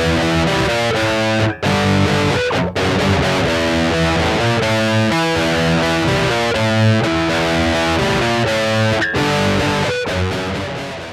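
Distorted electric guitar playing a rock riff, a continuous run of notes through an effects unit, with two brief cut-outs early on and the sound fading near the end.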